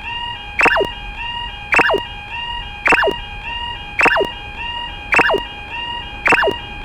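Railroad crossing warning alarm in an animation: an electronic two-note tone alternating about twice a second, overlaid by a loud, sharp tone that sweeps quickly downward about once a second, six times.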